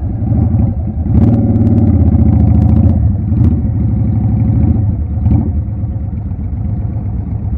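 Motorcycle engine running at low speed, picking up about a second in and easing off after about five seconds. A few sharp clicks come early in the pickup.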